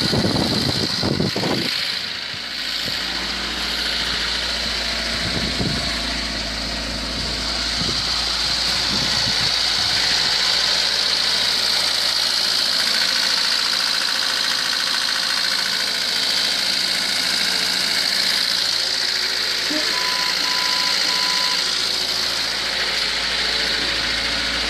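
VAZ 21013 Zhiguli's four-cylinder petrol engine idling steadily on fresh oil. Three short beeps sound near the end.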